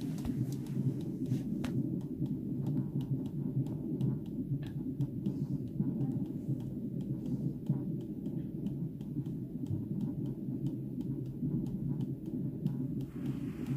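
Unborn baby's heartbeat picked up by the ultrasound Doppler transducer of a Sonicaid FM800 Encore fetal monitor and played through its speaker: a fast, steady whooshing pulse.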